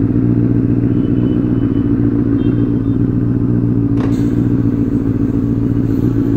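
Benelli 600i's inline four-cylinder engine idling steadily, with an even, fast exhaust pulse and no revving.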